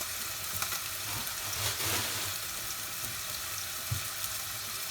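Chunks of chicken breast frying in oil in a pan, sizzling steadily as they seal, with a brief swell in the sizzle about two seconds in.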